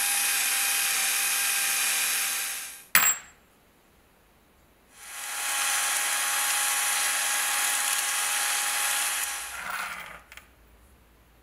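Electric drill running steadily as a bit bores through a steel plate, stopping with one sharp click about three seconds in. After a short pause the cordless drill runs again for about four seconds, spinning a small steel pin against P80 sandpaper, then a light metallic clatter near the end as the pin is set down.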